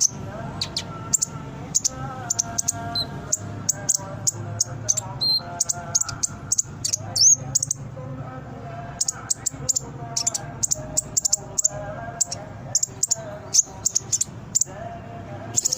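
Sunbird song: thin, high chips given in quick runs, with lower warbling notes among them, over a steady low hum.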